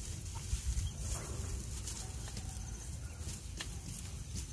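A small group of quail in a straw-lined box: faint soft calls and rustling in the straw, over a steady low rumble.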